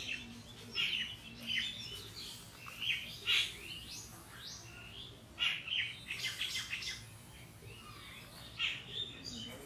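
Birds chirping around the area: many short, high, swooping calls at irregular intervals.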